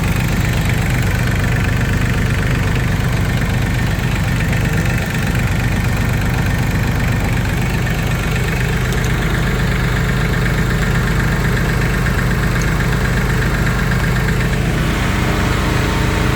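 Tractor diesel engine idling steadily in the cold, just after being started with a hair dryer blowing warm air into the intake to make up for faulty glow plugs.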